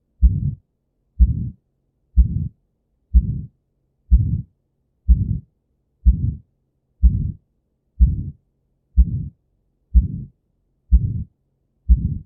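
Recorded heart sounds beating steadily about once a second (roughly 63 beats a minute). Each beat is a low thump that starts sharply and trails off over about a third of a second.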